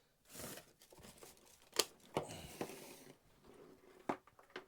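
Rustling and handling noise with several sharp clicks and knocks, as of things being moved about in a loft.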